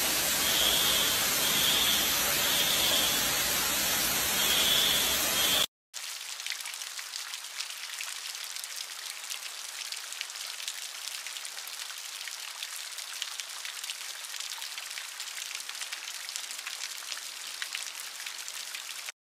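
Water from a burst pipe gushing down into a stairwell, loud and steady, with a building alarm's high beep repeating over it. After a short cut to silence, a quieter steady patter of water streaming and dripping from a ceiling onto a room's floor, with many small drips.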